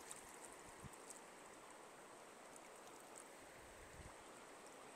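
Faint, steady rush of flowing stream water, with no other distinct sound.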